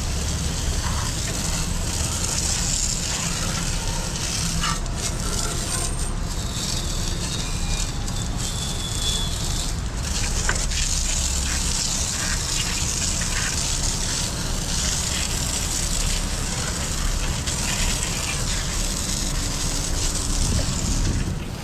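Hose spray nozzle jetting water onto a wet wooden deck: a steady hiss and splatter of spray rinsing the deck.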